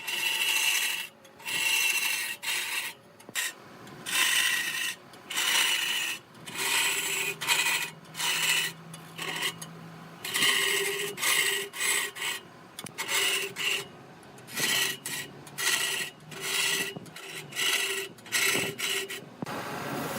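Wood being scraped on a running woodturning lathe: a tool or abrasive rasping against the spinning workpiece in repeated short strokes, roughly one a second, over the faint steady hum of the lathe.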